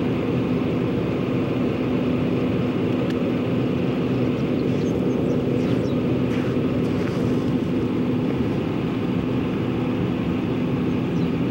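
A vehicle engine running steadily: an even low hum with a constant drone, no revving.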